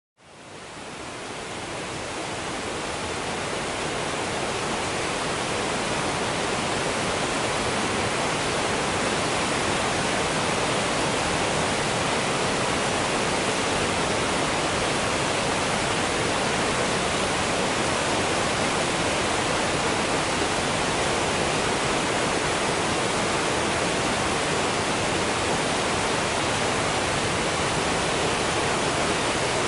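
Waterfall: a steady, even rush of falling water, fading in over the first few seconds.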